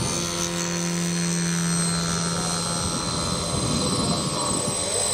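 Engine and propeller of a large-scale radio-controlled Spitfire model running at high power as it climbs out. The low engine note weakens about three seconds in, and a steady high whine runs alongside it.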